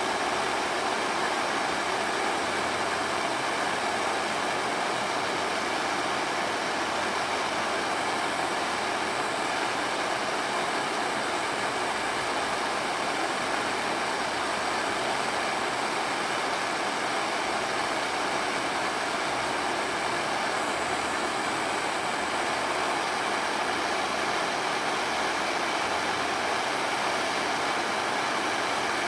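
Butane-propane gas torch burning with a steady hiss while heating the aluminium crankcase for a solder repair; the flame is too cool to make the solder stick.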